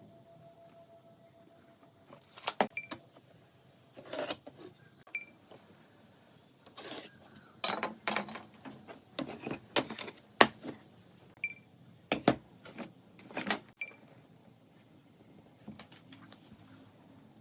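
Irregular knocks and clinks of hand tools and workpieces being handled, in scattered clusters with short pauses between.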